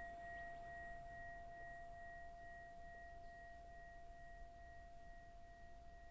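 Buddhist mindfulness bell ringing on after being struck, a steady low tone with a fainter higher overtone, slowly fading away.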